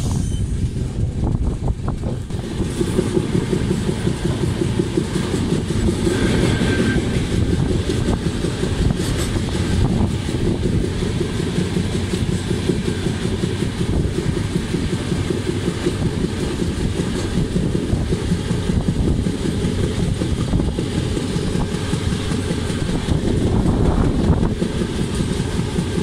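Express passenger train running along the line, heard from the open door of a coach: steady noise of the coaches' wheels on the rails.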